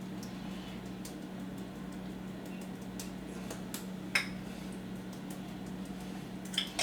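Quiet kitchen with a steady low hum and scattered light clicks and taps, the sharpest about four seconds in.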